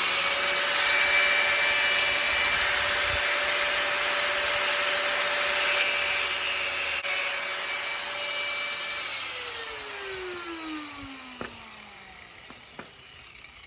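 Angle grinder with a cut-off wheel running at full speed, cutting off the ends of a metal latch bracket with a loud steady whine and the hiss of the wheel in the metal. About nine seconds in it is switched off, and the whine falls steadily as the wheel spins down, with a few light clicks near the end.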